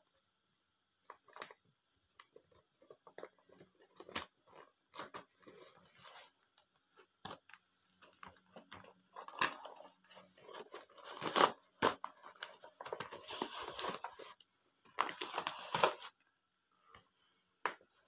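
Clear plastic zippered bag being unzipped and handled as a cardboard toy box is slid out of it: plastic rustling and crackling in irregular bursts with small clicks, louder and denser in the second half.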